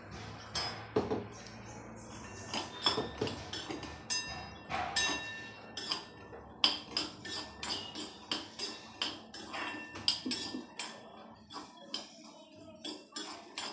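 A spoon stirring green peas in a metal kadhai: repeated irregular clinks and scrapes against the pan, some of them leaving a brief metallic ring.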